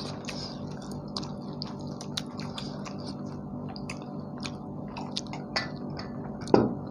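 People chewing and eating tandoori chicken and naan: scattered short wet mouth clicks and smacks over a steady low hum, with one louder smack near the end.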